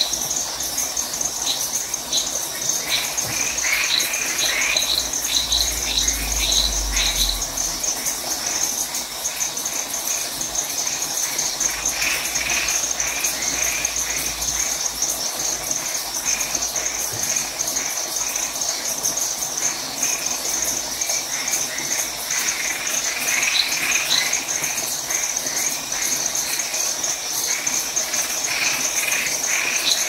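Rural night chorus: crickets keep up a steady high trill throughout, while frogs call in runs of short repeated notes, one run in the first few seconds and another in the last third.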